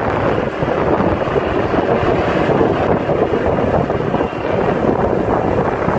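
Wind buffeting the microphone of a moving motorbike, a steady rushing noise mixed with the bike's riding noise.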